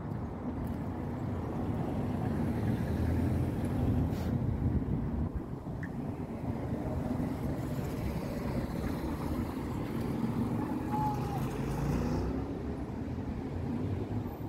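Road traffic: the low rumble of a passing motor vehicle, swelling to its loudest about four seconds in and again near the end.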